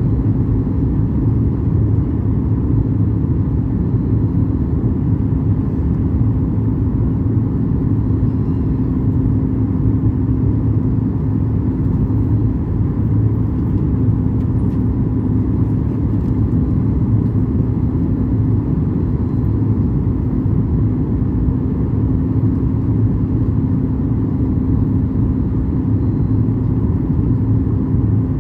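Cabin noise of a Boeing 737-800 airliner descending on approach: its CFM56-7B engines give a steady low drone over the rush of air past the fuselage, with two steady hums and no change in pitch or level.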